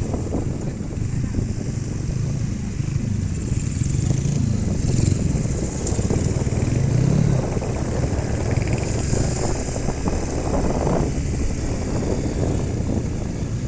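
Wind rumbling on the microphone over a running motor vehicle engine, rising and falling a little in pitch.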